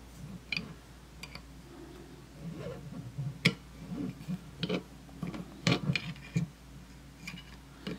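Scattered light clicks and scrapes of hands working the metal parts of a pearl rivet setting tool while changing out its interchangeable tip.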